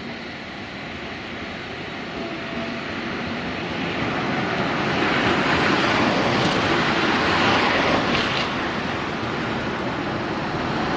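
Street traffic: a low-floor tram runs off into the distance, its faint steady hum fading, while road vehicles approach with rising tyre and engine noise. The noise is loudest from about five to eight seconds in.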